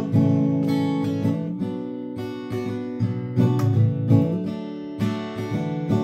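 Acoustic guitar with a capo, strummed chords ringing on with a fresh strum about every second, in an instrumental passage of the song with no singing.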